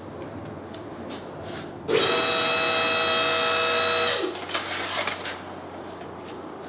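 A power tool's motor starts about two seconds in and runs for roughly two seconds with a steady high whine, then winds down in pitch as it stops. Light clicks and knocks of tools on metal come before and after it.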